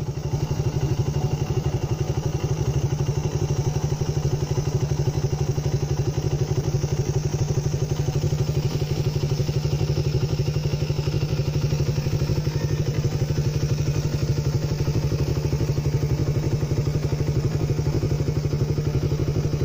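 Small motorcycle engine running steadily close by, an even low hum with a fast, regular pulse that neither revs up nor dies away.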